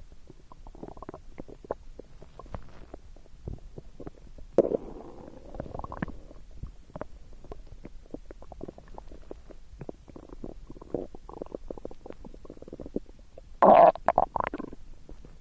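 A person's stomach rumbling and gurgling: a run of small crackles and bubbling sounds, with a louder gurgle about a third of the way in and the loudest, longest gurgle near the end.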